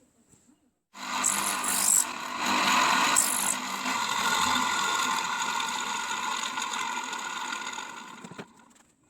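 Angle grinder starting about a second in and running steadily, then winding down and stopping near the end.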